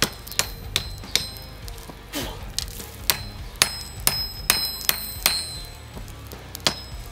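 Hand hammer striking a red-hot steel bar on a steel-block anvil, flattening the end: sharp ringing blows, up to about four a second, in three groups with short pauses between.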